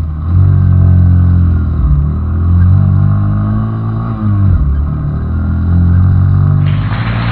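Small Honda Benly 90cc single-cylinder motorcycle engine running steadily under way, its pitch dropping briefly twice. A hiss comes in near the end.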